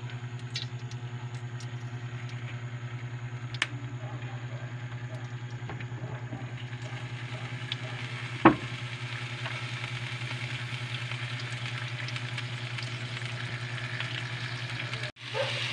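Cooking oil heating in a steel pan, a faint sizzle growing from about halfway, over a steady low hum; a single sharp tap about halfway is the loudest sound. Just before the end, after a brief cut, louder frying starts.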